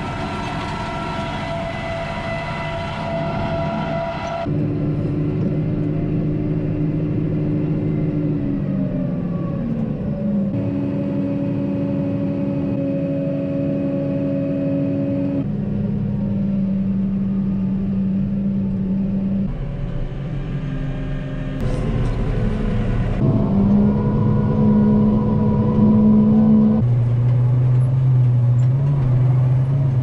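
Tractor engine running steadily while pulling a field sprayer, heard as a series of short edited clips: its pitch jumps to a new steady level at each cut, and glides down smoothly about eight to ten seconds in as the engine slows.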